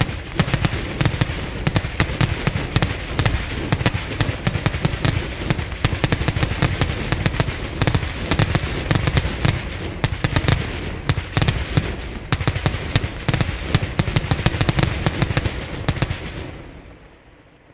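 Maltese batterija, a ground line of 3-inch salutes and beraq, firing in a rapid, continuous barrage of loud bangs that dies away near the end.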